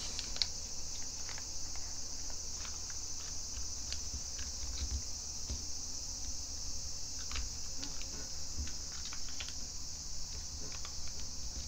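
Origami paper being folded and creased by hand, giving scattered soft crackles and small clicks as fingers press the folds flat, over a steady high-pitched hiss.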